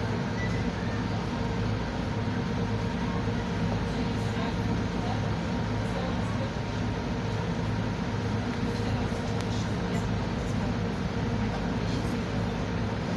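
Boat engine running at a steady speed, a constant low drone.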